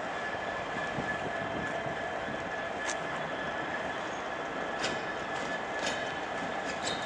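Class 66 diesel-electric locomotive with its EMD two-stroke V12 engine, moving slowly over pointwork: a steady engine drone with a held high whine. A few sharp clicks about three, five and six seconds in come from the wheels crossing the points.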